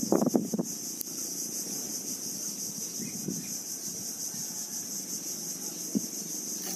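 Steady high-pitched insect chorus, with a few short knocks and rattles near the start.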